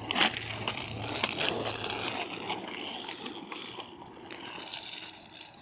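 Skateboard wheels rolling over rough asphalt, a steady rumble with scattered clicks, growing fainter as the board rides away.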